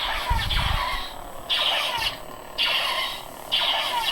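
Budget Adawlert lightsaber playing its Darth Vader sound font's blaster-deflection effects through the hilt speaker: four sharp zaps with falling pitch, about a second apart. A low thump comes near the start.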